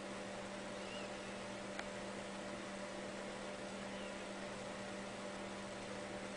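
Steady low electrical hum over an even hiss, with a single faint click just under two seconds in.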